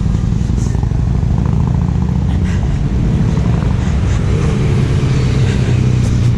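Motorcycle engine running steadily while under way, with wind and road noise over it.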